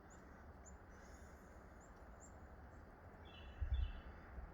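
Faint chirps of small birds, a few short high calls scattered through, with a quick series of higher notes and a brief low rumble about three and a half seconds in.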